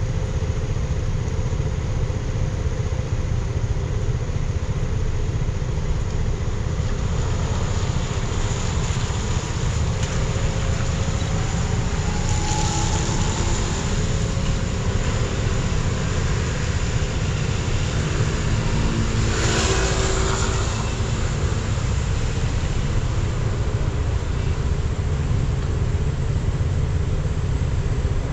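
Car driving in the rain: steady low road rumble with tyre hiss. Two brief swells of louder hiss come about twelve and nineteen seconds in.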